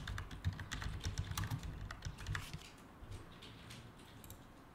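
Computer keyboard typing: a quick run of key clicks that thins out after about two and a half seconds, leaving a few scattered clicks.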